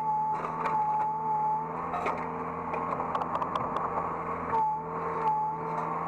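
Hydraulic excavator heard from the operator's cab: engine and hydraulic pump running with a steady whine. The higher part of the whine drops out for about two seconds in the middle, during a quick run of clicks and knocks.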